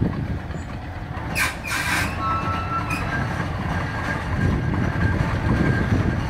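Coal-fired Ruston steam navvy face shovel working: a continuous low rumbling of the machinery, with two sharp hisses about a second and a half in, then brief high metallic squeals. The rumbling grows heavier in the second half as the upper works swing round.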